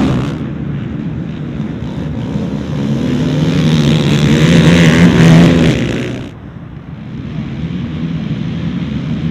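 Several 450cc racing quads' single-cylinder four-stroke engines revving hard as a pack passes close by. The sound builds to its loudest about five seconds in and falls away abruptly about six seconds in, leaving a quieter, steady din of engines.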